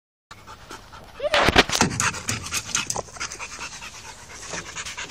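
A large dog panting hard and fast close to the microphone, loudest about a second and a half in.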